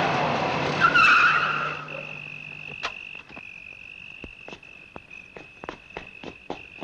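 A car's tyres screech for about two seconds, then give way to crickets chirring steadily at a high pitch, with scattered sharp clicks.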